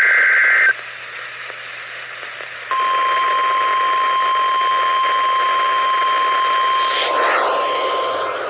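The tail of an EAS digital header burst, a harsh warbling data screech, cuts off under a second in. A couple of seconds of radio hiss follow. Then the steady single-pitch 1050 Hz NOAA Weather Radio warning alarm tone starts and holds, the signal that a severe thunderstorm warning is about to be read.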